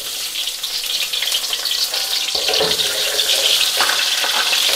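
Onions sizzling steadily in hot frying oil just after being dropped in, with a few faint stirring knocks.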